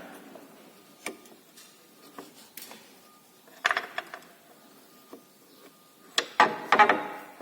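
Pry bar levering a Renault Scenic's front suspension, giving several metallic knocks and clunks, loudest near the end, as the ball joint shifts in a loose steering knuckle; the knuckle has worked loose, which the mechanic takes for a worn knuckle or an under-tightened bolt.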